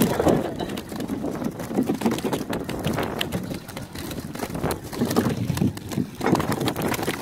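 Irregular knocks, slaps and rustling as fish and a nylon gill net are handled on a boat deck, over a steady low rumble.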